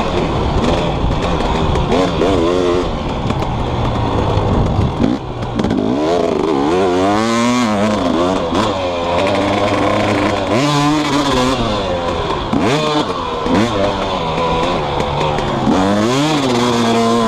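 2018 Husqvarna TC250's 250 cc single-cylinder two-stroke engine being ridden hard. The revs climb and fall back again and again as the throttle is opened and rolled off through the gears, with a brief drop in loudness about five seconds in.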